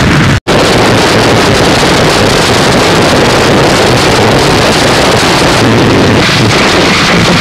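Harsh noise music: a loud, dense wall of distorted static with no melody or beat. It drops out for an instant about half a second in, where one track gives way to the next.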